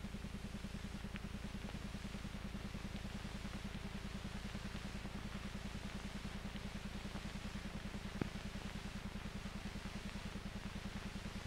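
Steady low pulsing hum of an old film soundtrack, with one faint click about eight seconds in.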